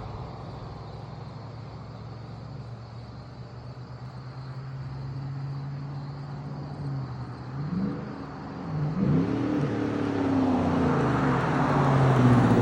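Chevrolet Silverado 1500 engine, breathing through an S&B cold air intake and exhausting through a Corsa Performance Sport exhaust, running steadily at first. About 8 seconds in it revs up and down a few times, then pulls harder, getting louder toward the end.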